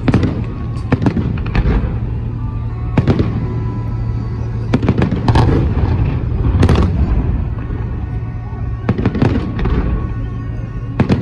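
Fireworks salute going off: a series of irregularly spaced bangs, some in quick pairs, over a steady low rumble.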